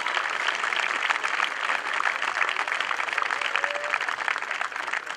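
Crowd applauding: a dense, steady clatter of many hands clapping, easing off a little near the end.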